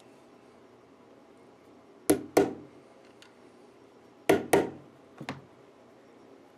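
Sharp wooden knocks in pairs: two about two seconds in, two more about two seconds later, then a fainter pair. A small pointed hand tool is being worked into the side of a wooden fretboard to make pilot dimples for the side-dot drill bit.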